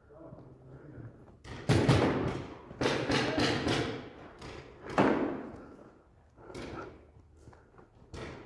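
Paintball markers firing in a large echoing concrete hall: a series of irregular sharp shots, each ringing on with echo, the loudest about two seconds in and again about five seconds in.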